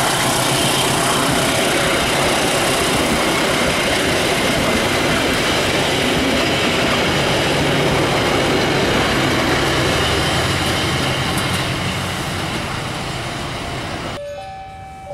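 Passenger train coaches rolling past close by: a steady rush of wheels on rail that eases off over the last few seconds. Near the end it cuts abruptly to a much quieter sound with a few short steady tones.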